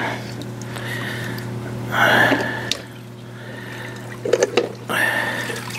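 Water sloshing and splashing in a pool skimmer as hands lift out the Vac-MATE plate and basket, with two splashy bursts, one about two seconds in and one near the end.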